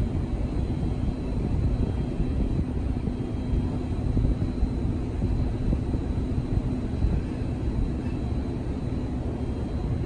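Steady low outdoor rumble of background noise, with a faint steady hum that fades out near the end.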